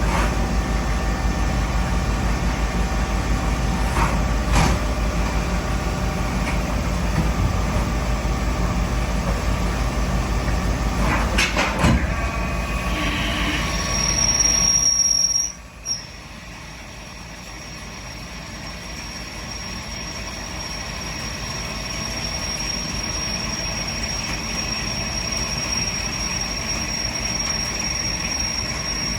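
CNC machining center running in real metal-cutting work: a steady loud machine noise with a low hum. About halfway through it drops off suddenly, leaving a steady high-pitched whine that slowly grows louder.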